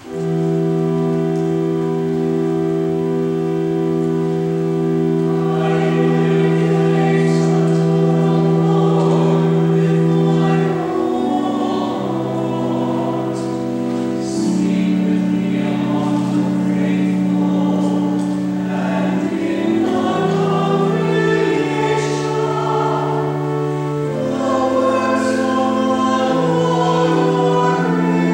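A pipe organ starts a sustained chord, and about five seconds in a church choir comes in singing in parts over the organ. The chords change every second or two.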